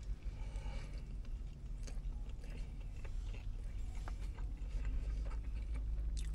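A person biting into a chicken Philly sub and chewing it, with faint small mouth clicks, over a steady low hum.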